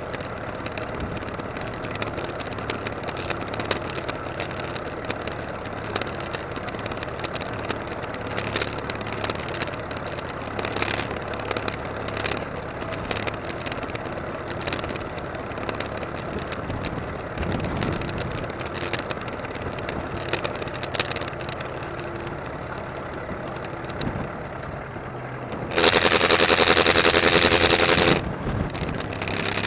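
The 2.3-litre four-cylinder diesel engine of a 1959 McCormick International B275 tractor running steadily with a clattering rattle. Near the end, a much louder sound with a clear pitch lasts about two seconds.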